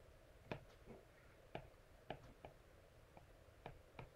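A stylus tip tapping and dragging on a tablet's glass screen while a word is handwritten: a string of about ten faint, irregular clicks.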